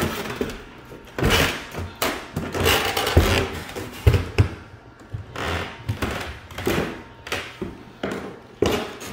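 Irregular thuds and knocks of footsteps going down a staircase, about a dozen spread unevenly.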